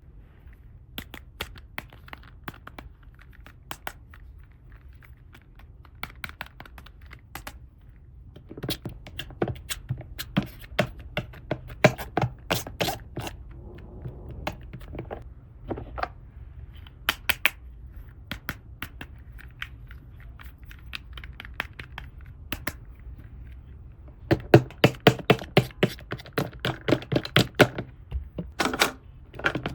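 Plastic toy pieces being handled at close range: irregular clicks, taps and light scrapes, coming thick and fast twice, over a faint steady low hum.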